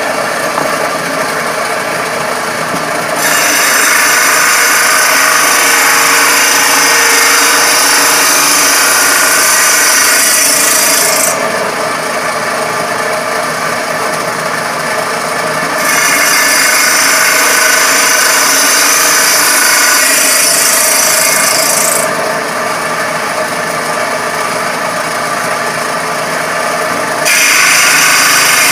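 Homemade table saw running, with three cuts of several seconds each as a board held on end in a tenon jig is pushed through the blade; each cut is louder and harsher than the free-running saw between them. The cuts form the cheeks of tenons.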